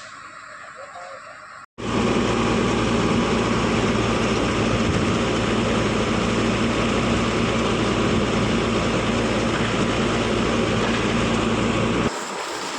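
Heavy diesel construction machinery running loudly and steadily, a constant engine drone under a mechanical clatter, cutting in suddenly about two seconds in and dropping away abruptly near the end.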